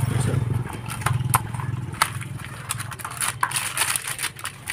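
Crackling and rustling of a new wheel bearing's cardboard box and plastic wrapping being handled and opened, in short irregular clicks, over a steady low hum.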